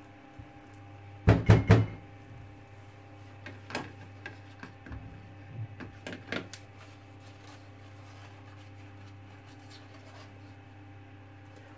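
A quick cluster of about four hard knocks, then a few lighter clunks over the next several seconds, as thick hot-process soap paste is worked with a spatula in a slow cooker's crock. A steady low hum runs underneath.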